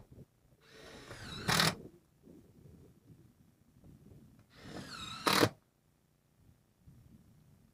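A power driver runs in two bursts a few seconds apart, each rising and ending in a short, loud rattle, typical of roofing screws being driven home into sheet-metal roofing.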